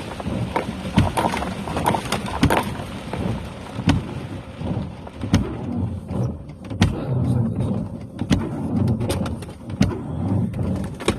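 Rain on a truck, heard from inside the cab, with irregular sharp taps of heavier drops over a low rumble; the rain hiss eases about six seconds in.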